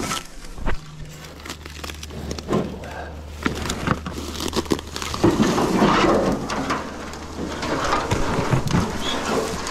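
Footsteps crunching and scraping over loose rock and dry brush, a busy run of irregular cracks and rustles that grows denser about halfway through.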